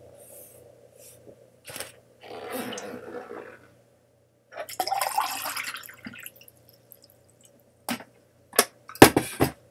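Water poured from a filter pitcher into a drinking glass in two splashing pours, followed by a few sharp knocks and clinks near the end, the loudest about nine seconds in.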